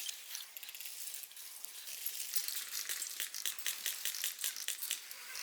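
Irregular crackling and rustling of dry leaves and twigs close to the microphone, a dense run of small clicks that grows busier in the second half.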